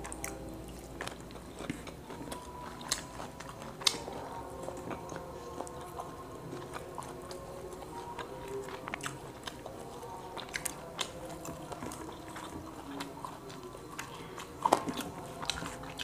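Close-up chewing and mouth sounds of a person eating grilled quail with his fingers: steady small wet clicks and smacks, with two sharper cracks, one about four seconds in and one near the end.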